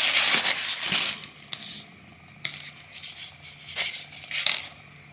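Tissue paper crinkling loudly as a knife is unwrapped, dying down after about a second, followed by a few short rustles and scrapes of paper being handled and a paper sleeve slid along the knife blade.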